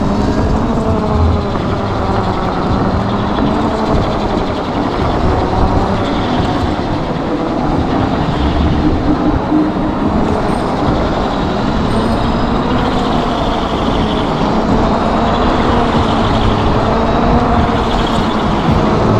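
Electric scooter ridden at speed: wind rushing over the action camera's microphone, with the VSETT 11+'s dual hub motors whining and the whine gliding up and down in pitch as the speed changes.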